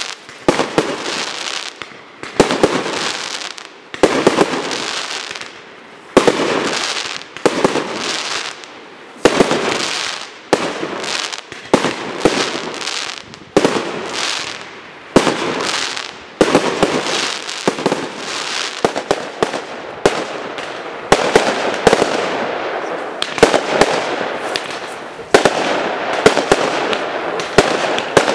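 Aerial fireworks going off in a professional display: sharp bangs every second or two, each trailing off over about a second. The bursts come closer together in the last third, so the sound hardly drops between them.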